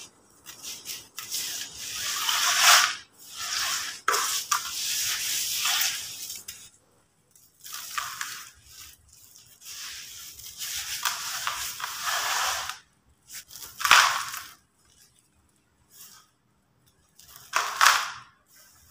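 Hands crumbling and squeezing dry, gritty sand-cement mix in a plastic bowl: irregular bursts of crunching and grainy rustling, broken by short pauses. The sharpest crunches come about three seconds in, about fourteen seconds in, and near the end.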